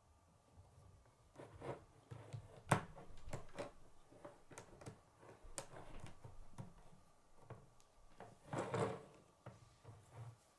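Plastic K'nex rods, tubes and connectors clicking and rattling as hands press and move a built model. It is an irregular run of clicks, with the sharpest about three seconds in and a longer rattle shortly before the end.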